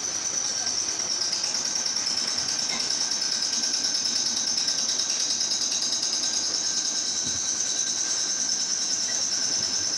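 A workshop machine running steadily with a high-pitched whine and a fast, even flutter.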